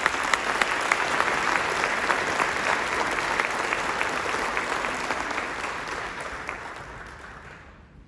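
Audience applauding, a dense clatter of hand claps that holds steady for several seconds and then dies away near the end.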